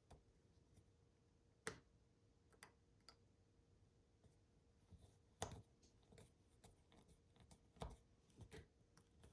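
Faint, scattered small clicks of a screwdriver turning a tiny screw into a plastic key fob housing, about half a dozen ticks at uneven intervals; the screw is not going in smoothly.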